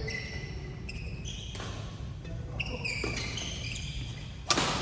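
Badminton rally: sharp racket hits on the shuttlecock, three of them, the last one near the end the loudest, with short high squeaks of shoes on the wooden court floor.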